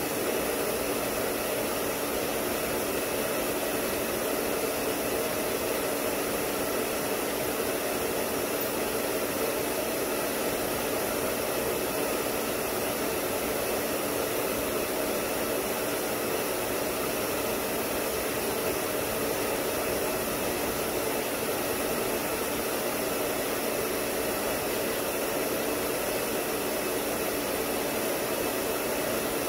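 Hair dryer blowing steadily, an even, unbroken noise with a faint hum, drying a dog's wet coat after its bath.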